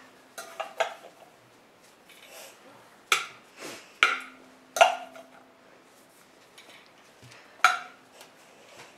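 Metal kitchen tongs clinking and scraping against the glass bowl of a halogen convection oven while picking out french fries: about eight sharp, irregular clinks, several of them leaving a brief ring.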